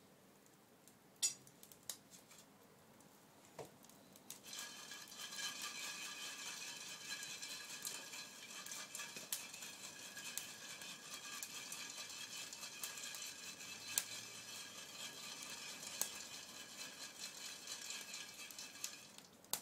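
Chestnuts sizzling and hissing in a pan held over a wood fire. The steady hiss starts about four seconds in, once the pan is over the flames, with a few sharp clicks before and during it.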